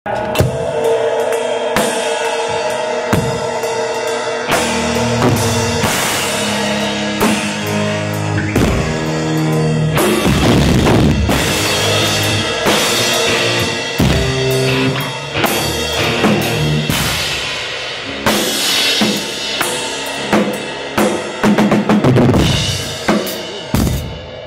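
Rock band music driven by a full drum kit: kick drum, snare and cymbal crashes over bass and pitched instruments. It drops away abruptly near the end.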